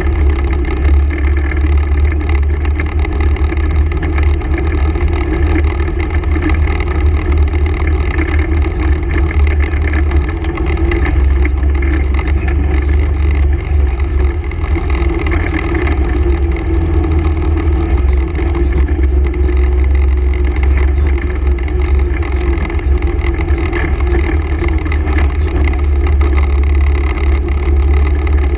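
Honda ATV engine running steadily as the four-wheeler rides along a rocky dirt trail, with a constant low rumble and no marked revving.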